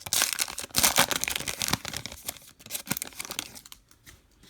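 A baseball card pack wrapper being torn open and crinkled, a dense run of crackling that dies down after about three and a half seconds.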